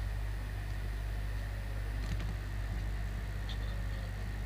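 A steady low hum at an even level, with a few faint clicks about two and three and a half seconds in.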